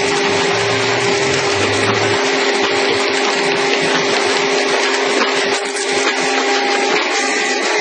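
Hydraulic excavator running steadily under power, its engine and hydraulic pump giving a constant noise with a steady whine, as it drives a pile breaker.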